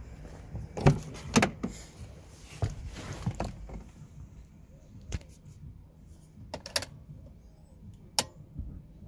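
A Mercedes W203 C-Class car door being opened and shut: a run of sharp clicks and knocks, the loudest two about a second in. Lighter single clicks follow every second or two as the key is worked in the ignition and the dashboard switches on, ahead of an engine start.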